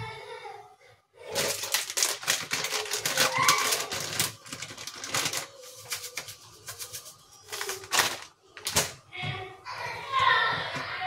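A plastic packet crinkling and crackling in the hands, a rapid run of sharp crackles, with children's voices calling out twice in the background.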